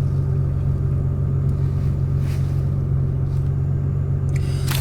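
Steady low rumble of a car's engine and drivetrain heard from inside the cabin.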